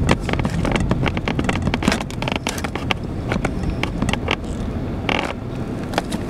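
Car driving slowly, heard from inside: a steady low road rumble with frequent irregular knocks and rattles.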